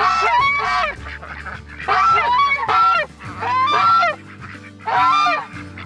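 African geese honking as they walk out across the grass: a run of about five loud honks, each a second or less.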